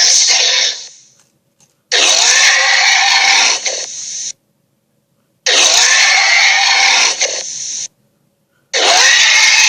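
Raspy, roar-like creature sound effects: a burst ending just under a second in, two full ones of about two and a half seconds each, and another starting near the end, each trailing off briefly before cutting off into silence.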